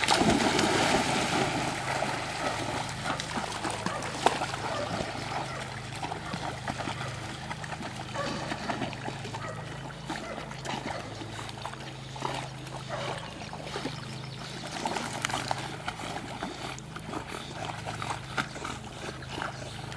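Several dogs splashing as they plunge into a pond, loudest in the first couple of seconds, then paddling and swimming with water sloshing and dribbling around them.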